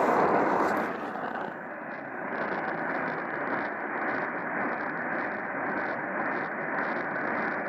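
Steady hiss and static from an AM radio receiver with no programme audio: dead air.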